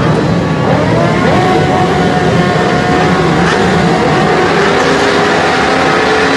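A full grid of 1000cc World Superbike racing motorcycles revving on the start line, dozens of engines overlapping. Their pitch climbs in the first second or so, then holds high and steady as the riders keep the revs up waiting for the start.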